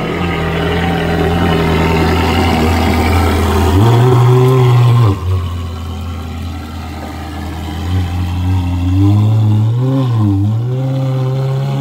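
Ferrari F430's 4.3-litre V8 running as the car backs down a trailer ramp, with a brief rise in revs about four seconds in and several smaller rises and falls in revs near the end.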